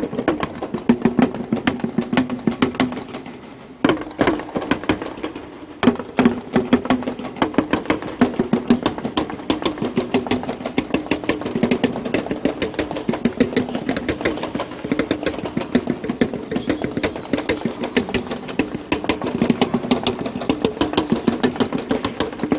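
Pair of bongos struck rapidly with drumsticks in a fast, continuous roll, inside the echoing concrete shell of a huge cooling tower. The playing thins out briefly a few seconds in, with one sharp hit, then picks up again.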